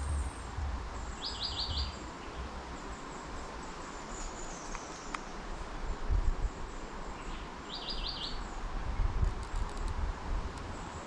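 A small bird calling twice, each call a quick run of about five high notes, several seconds apart. Uneven low rumble on the microphone runs underneath.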